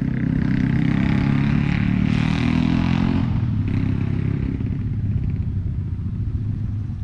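A motor vehicle's engine running steadily, a low rumble that drops away after about three seconds and keeps fading.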